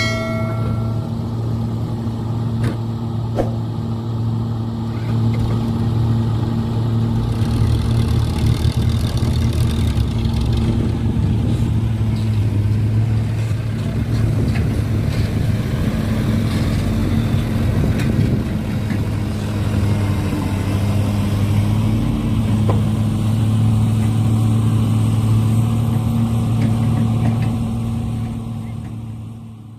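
Steady low engine drone of RC model construction machinery working, with a few light knocks, fading out near the end.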